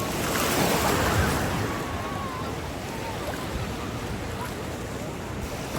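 Sea surf: a wave breaks and washes in, swelling louder in the first second or so, then an even hiss of water.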